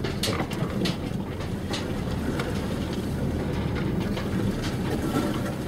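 Car interior noise while driving: a steady low engine and tyre rumble heard inside the cabin, with a few short clicks and knocks.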